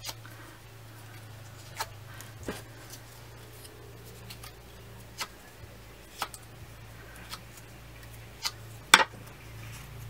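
Bone folder curling punched cardstock flower petals: soft paper rubbing with scattered sharp clicks and taps, the loudest near the end.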